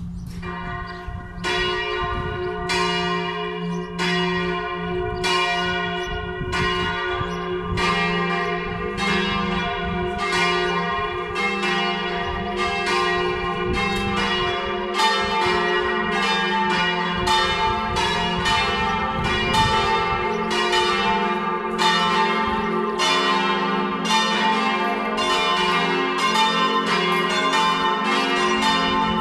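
A four-bell church peal, the largest bell in G-flat, swinging in a full peal for midday. Strokes come singly about once a second at first, then crowd together as more bells join, with a steady low hum beneath.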